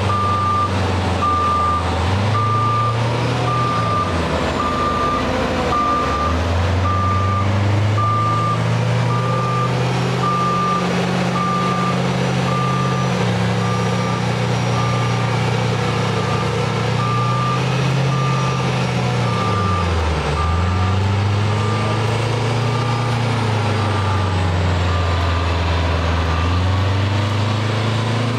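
Reversing alarm beeping about once a second over heavy diesel engines working under load, the revs sagging and picking up again a few times as a stuck off-road truck is pulled out of deep mud.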